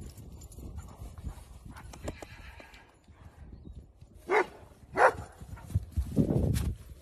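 Horse's hooves thudding on grass as it prances and trots, with two short sharp animal calls about four and five seconds in.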